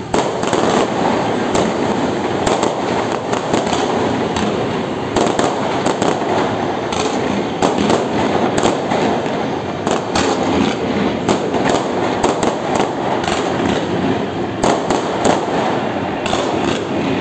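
Daytime fireworks going off in rapid succession: a dense, continuous crackle of many small bangs.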